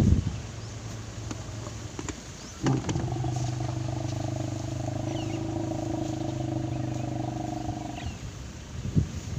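Sri Lankan elephant giving a long, steady low rumble lasting about five seconds, starting about three seconds in.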